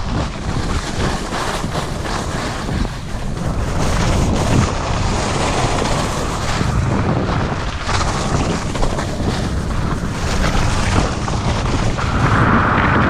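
Wind buffeting the microphone during a fast downhill run on a ski slope, over a steady rushing hiss of snow under the edges.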